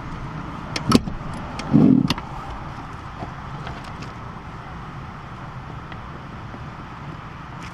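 A few sharp metallic clicks, then a single louder dull knock, from hand tools and parts being handled while undoing car seat bolts, over steady background noise.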